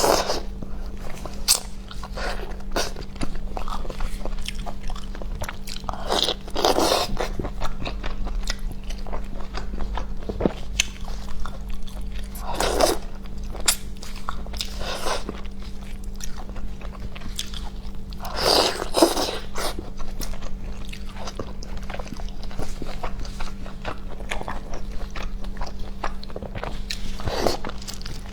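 A person eating close to the microphone: steady chewing and biting with small clicks, and several louder wet mouth-noise bursts every few seconds.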